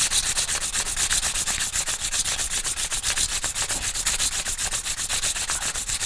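A strip of emery cloth pulled rapidly back and forth, shoe-shine style, around a pump motor shaft, buffing up the seat where the impeller sits: a fast, even rasping rhythm that does not let up.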